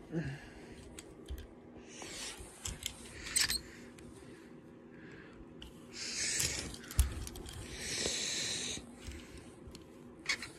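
Breathy rustling and handling noise close to the microphone, in several short spells, with a single sharp thump about seven seconds in, over a faint steady hum.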